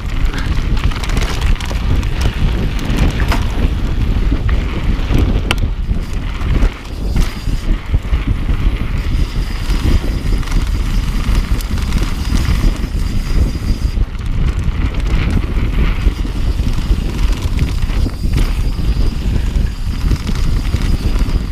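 Mountain bike descending a rocky dirt singletrack, its tyres crunching and the bike rattling over bumps, under loud wind rumble on the camera's microphone.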